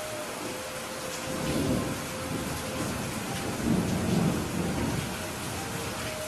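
Heavy rain falling steadily, with thunder rumbling low twice: once about a second and a half in, and again, louder, around four seconds in.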